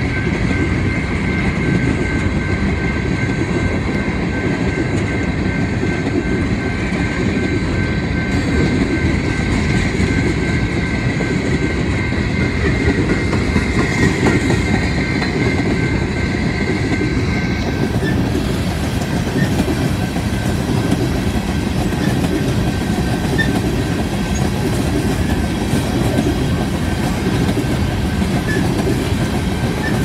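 Empty aluminum coal gondolas of a freight train rolling past at a grade crossing: a steady heavy rumble with clatter of wheels over the rails. A steady high wheel squeal sounds over it and fades out a little past halfway.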